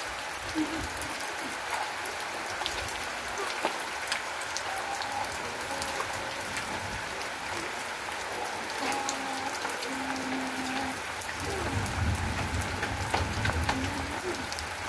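Steady rain falling, an even hiss with many small drop ticks. A low rumble rises in the last few seconds.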